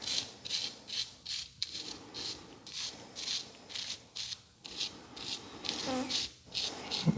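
Hand rubbing and scrubbing at a layer of crud on a disassembled EA888 1.8T engine part, in even back-and-forth strokes about twice a second. A brief low sound comes right at the end.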